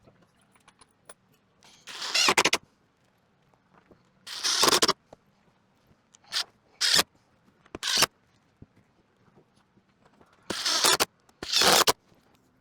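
A power tool run in about seven short bursts, each well under a second, typical of driving fasteners while assembling a wooden frame.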